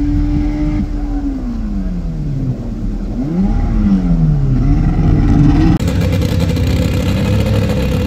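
A car engine held at high revs, then falling in pitch as the throttle is let off, followed by a few quick revs up and down as the car slows. A little before six seconds the sound cuts to another car's engine running at a steady low pitch.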